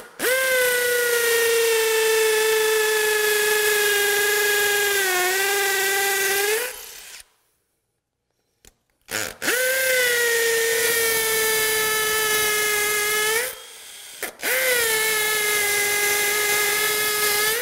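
Cordless drill with a masonry bit drilling into a concrete floor to take plastic anchors. It runs at a steady pitch in three long runs with short pauses between them, one for each hole, the pitch sagging briefly under load in the first.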